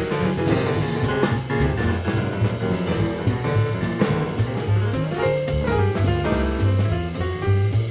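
Live small-group jazz: a piano plays running lines over double bass and a drum kit. It is an FM radio broadcast recorded on cassette tape.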